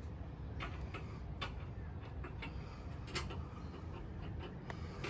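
Light, irregular clicks and taps, about a dozen scattered through, one a little louder about three seconds in, over a steady low hum.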